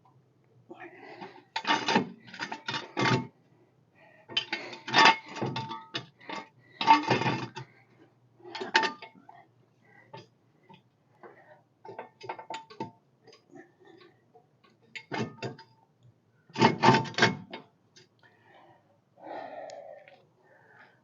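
Metal clanking and rattling in several bursts with a ringing note: a jack and jack stand being set under the car.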